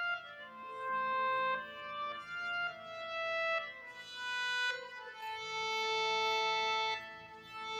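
Background music: a slow melody of long held instrumental notes, changing pitch every second or so.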